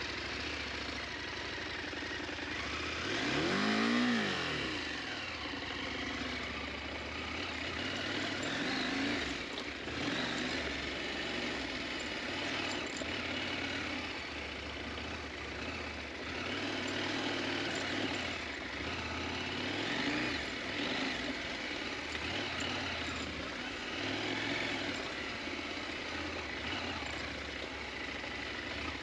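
KTM 890 Adventure's parallel-twin engine revving up and down as the motorcycle is ridden off-road. The loudest rise and fall in pitch comes about four seconds in.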